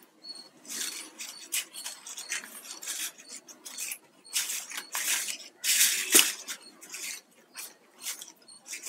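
Plastic craft-wire strands rubbing and squeaking against each other as they are worked and pulled tight through a woven knot, in a run of short scrapes and chirps, loudest about six seconds in.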